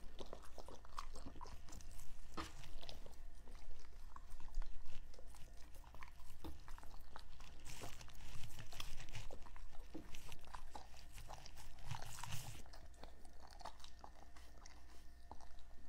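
A dog licking at and chewing a peeled hard-boiled egg on a tabletop: a steady run of short smacks and clicks from tongue and mouth, briefly louder about halfway through and again near the three-quarter mark.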